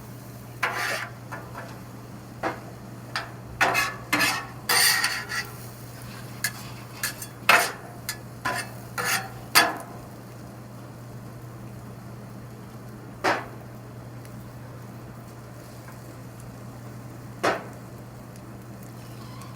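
Metal spatula scraping and clacking on a flat-top griddle as shrimp, onion and carrots are stirred and fried. Busy, quick strokes for about the first ten seconds, then two single clacks later, over a low steady hum.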